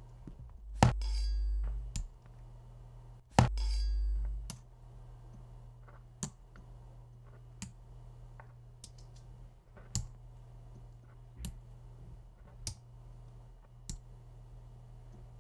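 Keys on an Apple computer keyboard pressed one at a time, a single click about every second and a bit as letters are typed slowly. Near the start come two louder sharp clinks, each followed by a low hum lasting about a second.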